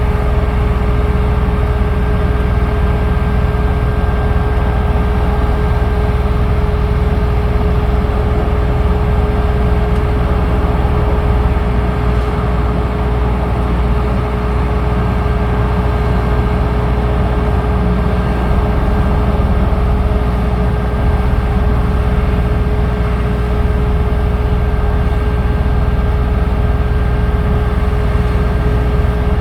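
An engine running steadily at constant speed, with a low drone and a steady high tone over it.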